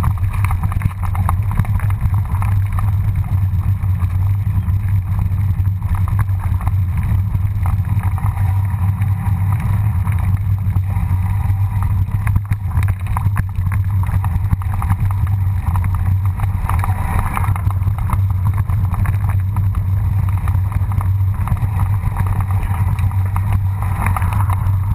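Mountain bike rolling fast down a rough dirt and stone trail, heard through a bike-mounted action camera: a steady low rumble of wind and vibration on the microphone, with occasional clatter as the bike goes over stones.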